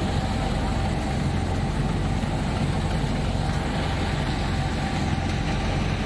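Tractor-driven wheat thresher at work while sheaves are fed in, powered by a 1982 Fiat 480 tractor's three-cylinder diesel: a steady mechanical drone of engine and spinning threshing drum, with a faint steady whine on top.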